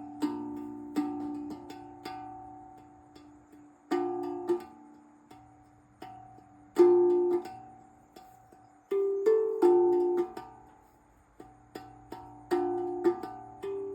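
Steel tongue drum in D Kurd tuning, with a B flat ding in place of the usual D, being played: single struck notes and quick pairs ring out and slowly die away, in short phrases with pauses between them.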